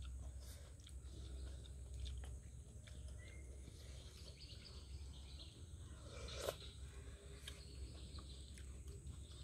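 Quiet sounds of people eating: faint chewing and scattered small clicks, with one sharper click about six and a half seconds in, over a steady low background hum.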